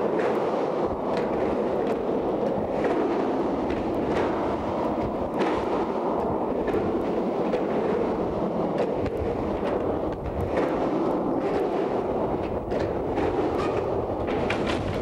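Skateboard wheels rolling and carving inside a large industrial drain pipe: a continuous rumble, with frequent sharp clacks from the board.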